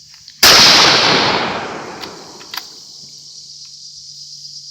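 A single shot from a .222 Remington rifle: one sharp, loud crack that dies away over about a second and a half, followed by a faint click about two seconds later.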